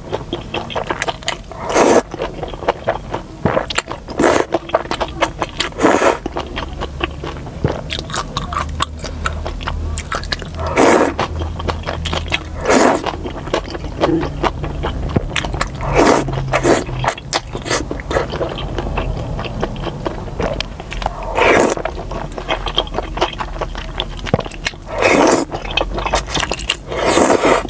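A person slurping up wide, slippery beef tendon noodles and liangpi from a bowl, about eight loud slurps spaced a few seconds apart, with wet chewing and small mouth clicks in between.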